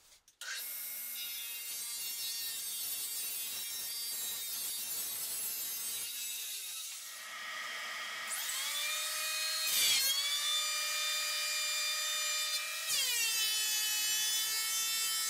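Delta 12-inch portable thickness planer running and planing boards: a steady motor whine with cutter noise, its pitch dipping and climbing back a few times as the load changes, the last rise near the end.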